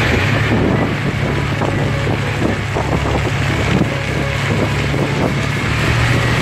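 A steady low drone with wind noise on the microphone.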